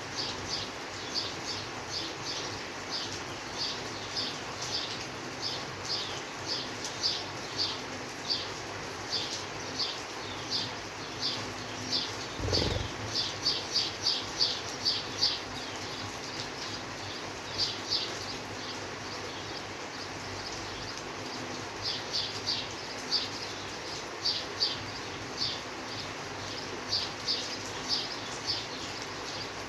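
Steady rain hiss under repeated short, high chirps that come a few a second in irregular runs, each falling slightly in pitch. A single low thud comes about halfway through.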